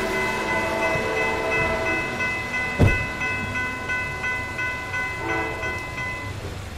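Railroad grade-crossing bell ringing with rapid even strokes, about four a second, as the crossing gates come down, then falling silent about six seconds in. A train horn sounds under it at the start, and a single sharp thump comes a little before the three-second mark.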